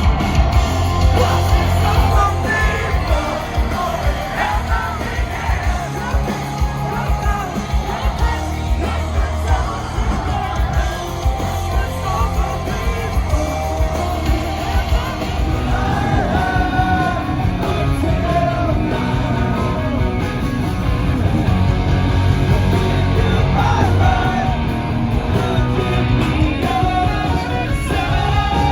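Live rock band playing loud, with a singer singing and yelling over a heavy low end and drums.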